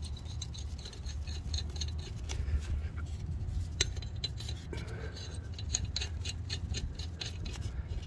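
Lug nuts being threaded by hand onto the steel wheel studs of a Kubota BX rear wheel: a run of small metallic clicks and light scraping, over a steady low hum.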